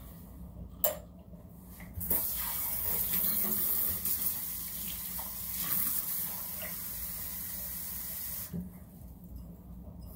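A short knock, then a kitchen tap running cold water into a measuring cup: the water comes on about two seconds in as a steady hiss and is shut off about six seconds later.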